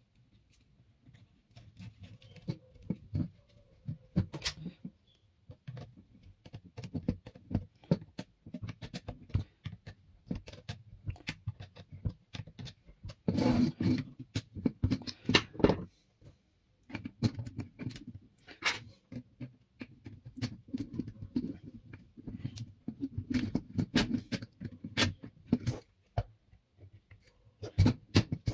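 Hands handling and working small hard parts and tools: irregular clicks, taps and knocks, with a denser, louder clatter about halfway through.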